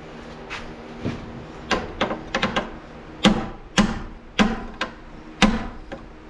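About a dozen sharp knocks, irregularly spaced, striking at the knockout of an electrical box to punch it out; the knockout is sturdily made and resists.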